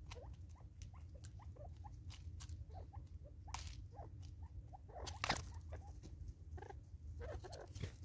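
Natal spurfowl pecking seed off a wooden tree stump: a busy patter of quick, irregular taps and clicks, with a louder tap about five seconds in.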